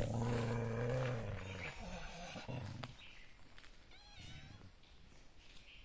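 A low, drawn-out animal growl lasting about a second and a half, then a shorter growl about two and a half seconds in, followed by faint high chirps.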